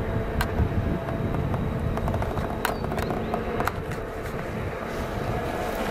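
Distant DB Class 232 'Ludmilla' diesel locomotive working under load with a heavy freight train: a steady engine drone over a low rumble, with a few faint sharp clicks.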